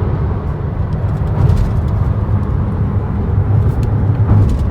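Steady low rumble of a car in motion: road and wind noise, with no distinct events.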